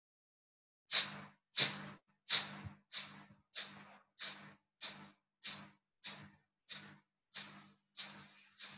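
Sharp, forceful exhalations through the nose with one nostril held closed, pumped from the belly in Kapalabhati (skull-shining) breathing. They begin about a second in and come evenly, about one and a half a second, growing gradually fainter.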